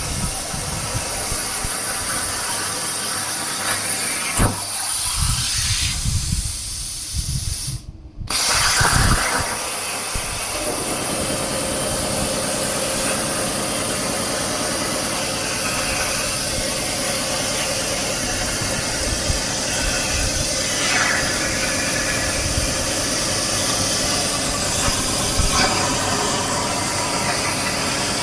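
CNC plasma torch cutting 8 mm mild steel: the plasma arc and its air blast hiss loudly and steadily. The hiss breaks off for a moment about eight seconds in, then starts again.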